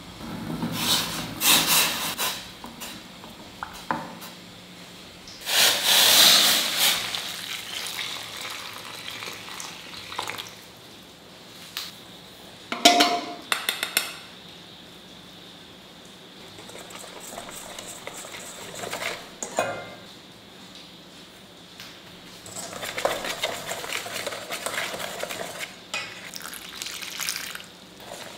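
A run of kitchen sounds in steel cookware: water sloshing in a steel pot, then a metal spoon clinking against a steel bowl as flours and spices go in, and finally a wire whisk beating water into the flour in the bowl with a fast scraping rattle over the last five seconds.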